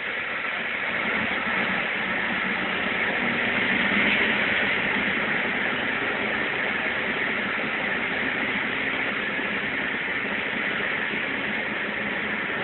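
Steady rumble of a diesel-hauled car-carrying train running through a tunnel, heard from inside a car riding on its flat wagon, with a faint low engine hum beneath. It grows a little louder in the first couple of seconds, then holds even.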